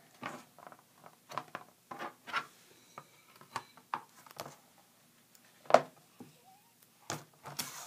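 Duct tape strip being handled, pressed down and flipped over on a plastic cutting mat: a string of short, irregular rustles and taps, the loudest about six seconds in and near the end.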